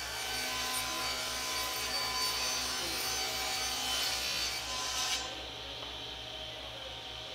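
A tool working wood: a steady, noisy sound that stops abruptly about five seconds in, leaving a quieter low hum.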